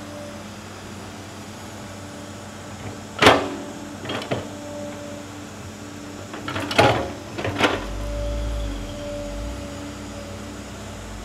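Crawler excavator's diesel engine running with a steady hydraulic hum while it digs, its steel bucket clanking sharply against soil and stone a few times, about 3 and 4 seconds in and again twice around 7 seconds. A deeper engine rumble comes in near the 8-second mark as the machine works under load.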